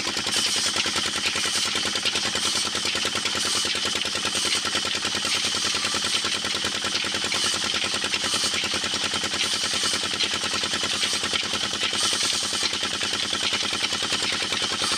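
Old diesel engine running steadily with rapid, even exhaust beats, driving a wood-cutting band saw.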